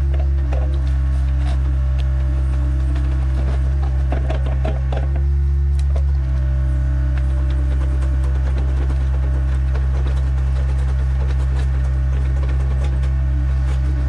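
Skid steer's diesel engine running steadily under work, with scattered metallic clanks and rattles from the machine; the engine note shifts slightly about halfway through.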